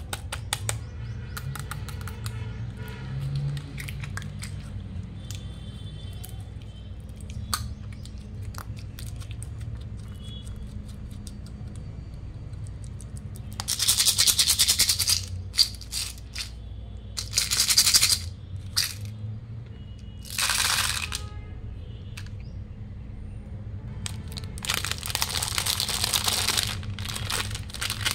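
Slime squished by hand in a small plastic tub, with scattered clicks and four loud squelching bursts, over faint background music.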